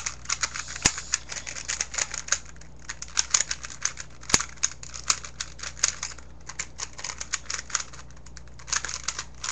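3x3 Rubik's Cube being scrambled quickly by hand: rapid runs of plastic clicks as the layers snap round, with a few short pauses and the odd louder click.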